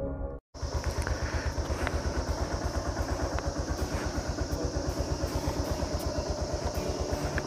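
Motorcycle engine idling steadily with an even, quick pulse, about eight or nine beats a second, and a steady high hiss over it. It starts abruptly about half a second in, right after the intro music cuts off.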